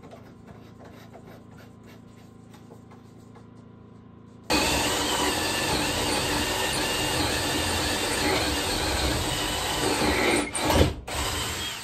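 Faint taps, then after about four seconds a power tool starts suddenly and works wood, loud and steady for about seven seconds with a short break near the end.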